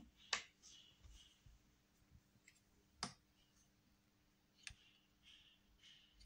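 Quiet handling noise of a hand on a sheet of paper on a wooden tabletop: three sharp clicks, about a third of a second in, about three seconds in and near five seconds, with faint soft rubbing strokes between them.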